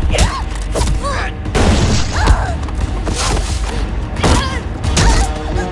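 Film fight-scene soundtrack: several short shouts and grunts from the fighters, mixed with sharp punch and kick hits and swishes, over a steady low music bed.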